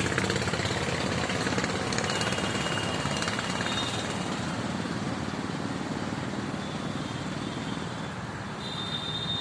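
Steady rumbling background noise, with a few short, thin, high whistling tones a couple of seconds in and again near the end.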